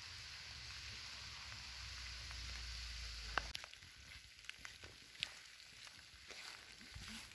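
A steady hiss with a low rumble for about the first three and a half seconds, then footsteps crunching on a wet gravel and leaf-littered forest track: irregular small clicks, with one sharp click when the hiss stops.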